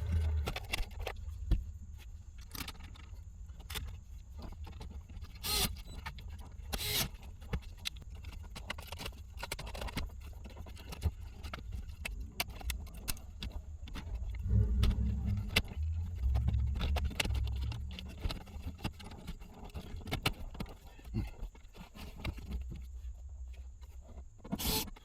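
Scattered clicks, taps and light rattles of hand work on a car's interior trim and wiring, with a low rumble that comes and goes, strongest a little past halfway.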